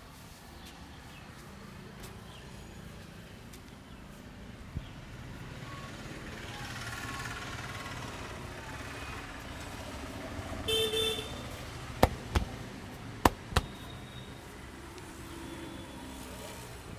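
Street traffic noise with a vehicle horn honking briefly near the middle, followed by four sharp smacks in two quick pairs.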